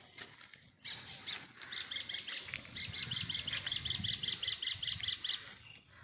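Small animal giving a rapid run of short, high-pitched chirps, about eight to ten a second, that stops shortly before the end.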